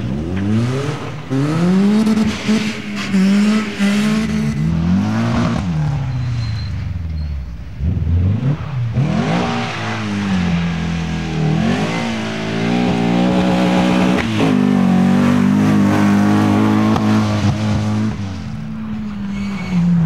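Rally car engine driven hard: the revs climb and drop back again and again as it shifts up through the gears, ease off for a few seconds in the middle, then climb once more and hold high before easing near the end.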